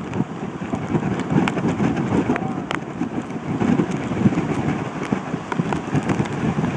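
Wind buffeting the microphone in heavy rain, a choppy rumble with many sharp ticks of raindrops striking the phone and rain gear.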